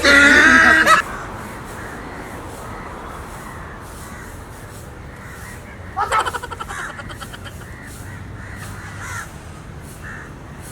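A loud, harsh animal call lasting about a second, then another burst of harsh calls about six seconds in that trails off.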